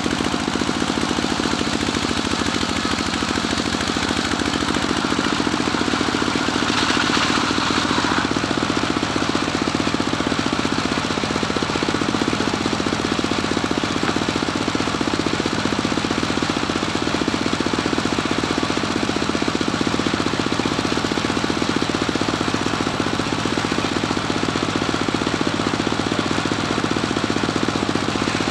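Engine of a homemade circular sawmill running steadily with a rapid knocking beat as it drives the circular saw blade. About seven seconds in, the blade cuts into cempaka wood with a brief higher-pitched sound over the engine.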